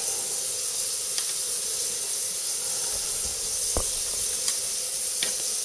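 Steady background hiss with a faint steady hum under it, broken by a few faint light clicks.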